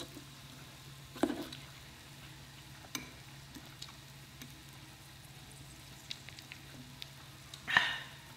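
Beef strips sizzling faintly on the hot grill plate of a tabletop hot pot, with a few short clicks and taps from a fork working the meat.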